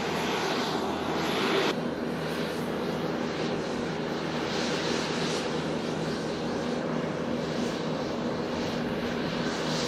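Boeing 747-8i's four jet engines running steadily as the airliner taxis and turns on the airfield, a continuous distant roar with a steady hum. A louder rush in the first two seconds cuts off abruptly.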